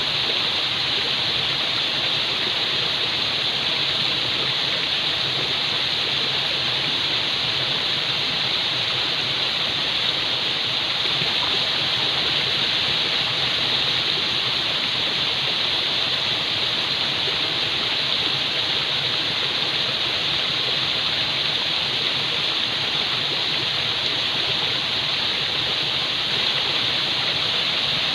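Falling water rushing steadily, an even hiss with no change in level.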